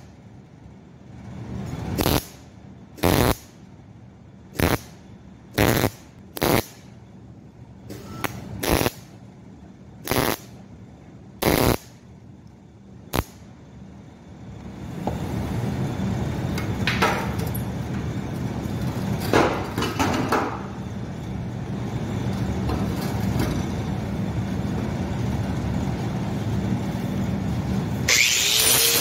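Hobart Handler 187 MIG welder with shielding gas sputtering in about ten short tack and stitch bursts, each well under a second, welding patches over the crossover holes in a motorcycle exhaust header; from about halfway it runs as one long continuous bead. Near the end an angle grinder spins up, its pitch rising.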